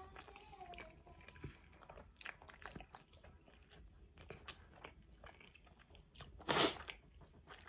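A person chewing food, with small crunches and clicks. A short, loud rush of noise comes about six and a half seconds in.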